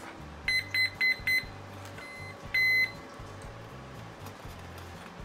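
Electronic speed controllers of a twin-motor RC warbird sounding their power-up tones through the brushless motors as the flight battery is connected: four short beeps, a faint one, then a longer beep about two and a half seconds in, the ESCs signalling they are powered and armed.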